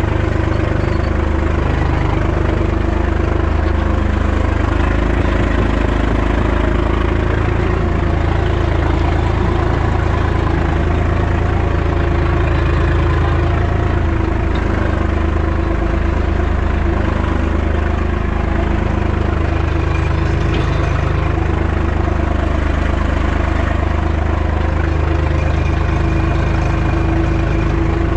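Hattat 240S tractor's diesel engine running steadily as the tractor is driven over rough grass, heard close up from the driver's seat.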